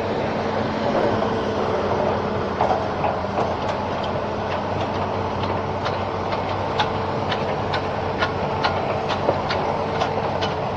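Hitachi Zaxis 210F amphibious excavator's diesel engine idling steadily, with a run of sharp ticks, about two a second, in the second half.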